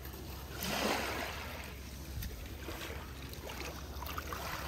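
Water sloshing and splashing as toy cars are moved through a pool of water, swelling about a second in, over a low steady hum.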